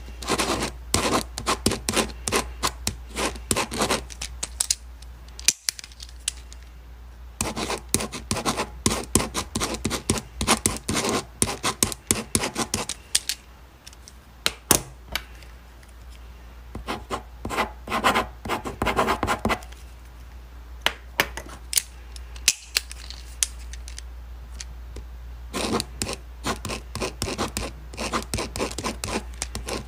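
Pen writing on paper: runs of quick scratchy strokes with short pauses between them, over a faint steady low hum.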